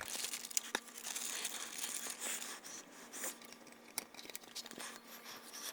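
Hands working a horseshoe retaining clip onto the end of a pickup's shift cable: irregular rustling and scraping with a few sharp clicks, the clearest about a second in and again near the middle.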